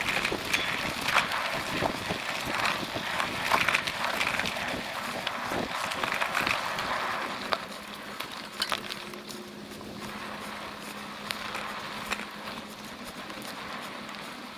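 Cyrusher Ranger electric bike riding over a bumpy woodland dirt trail: tyre noise with many sharp knocks and rattles from the bike jolting over the ground. It gets quieter about eight seconds in, leaving a faint steady hum with fewer knocks.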